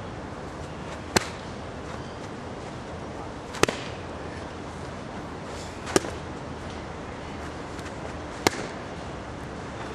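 Strikes landing on a hand-held focus mitt: four sharp smacks, evenly spaced about two and a half seconds apart.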